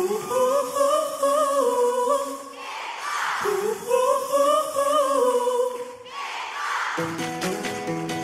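A singer's voice holding two long, wavering wordless phrases with no accompaniment, and a burst of crowd cheering after each. About seven seconds in, the band's instruments start playing.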